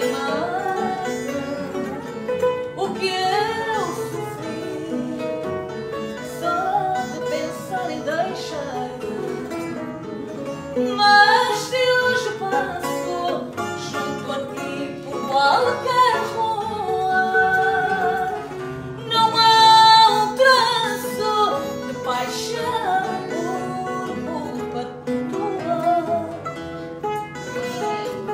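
Fado music: a Portuguese guitar playing the melody over a classical guitar and a bass guitar.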